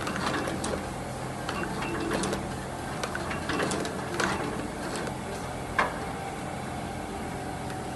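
Shoe sole-stitching machine running as its needle sews thread through the edge of a rubber outsole: a steady motor hum with scattered clicks of the stitching mechanism, and one sharper click about six seconds in.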